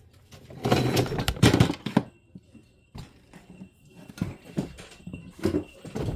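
A small bell, as on a pet's collar, tinkling faintly amid irregular rustling and scuffing of movement, loudest about a second in, with scattered light clicks.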